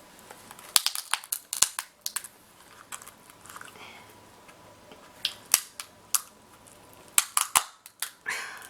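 King crab claw shell being cracked open by force: a run of sharp cracks and snaps in several clusters, with quieter crunching of shell between them.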